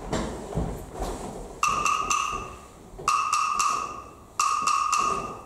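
A bell-like ringing tone sounds four times, roughly every one and a half seconds, each starting suddenly and fading over about a second; a few sharp clicks come before the first one.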